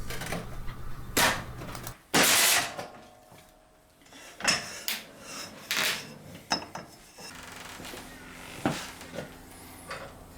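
Sheet-metal guillotine shearing a stainless steel sheet: a loud crunching cut about two seconds in, then scattered sharp metallic clanks and knocks as the blade and sheet are handled.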